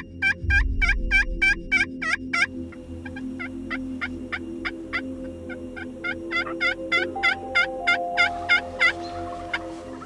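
Turkey hen yelps played on a pot-style friction call: a quick run of about nine loud yelps, then after a short pause a longer run of about twenty that starts softer and grows louder.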